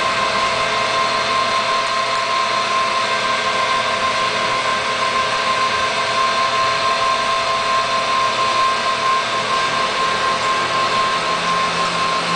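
Steady machine whine and rushing hum, like a fan or blower motor running, with a strong high tone that holds unchanged throughout.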